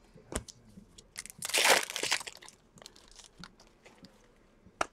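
Foil trading-card pack wrappers crinkling as hands handle and open them: a loud crinkle about a second in lasting about a second, with small crackles and clicks around it.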